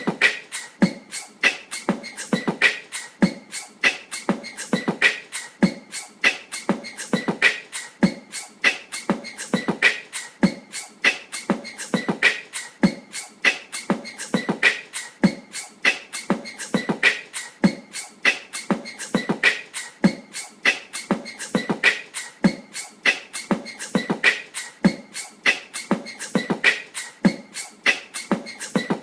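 Wobbly ceiling fan clicking and knocking in a steady rhythm as it spins, several clicks a second, with a louder group of knocks coming round about every two and a half seconds.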